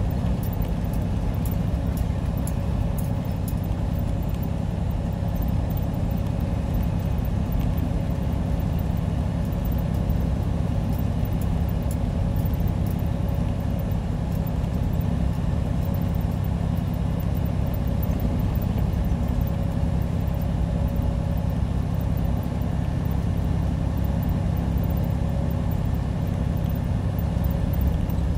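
Semi-truck running at steady speed, heard from inside the cab: an even, low engine-and-road drone with a faint steady hum above it.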